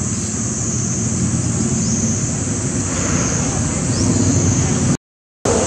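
Wind buffeting the microphone: a steady rumbling roar, with a steady high-pitched buzz behind it. The sound cuts out completely for a moment about five seconds in.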